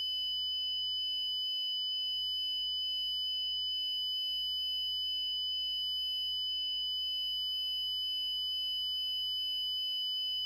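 A steady, unchanging high-pitched electronic tone with fainter higher tones above it: a synthesized Emergency Alert System (EAS) frequency sound effect.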